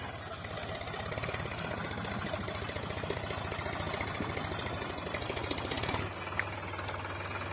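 Solis Yanmar 4WD tractor's diesel engine running steadily in low fourth gear with a three-bottom MB reversible plough hitched. It drops in level suddenly about six seconds in.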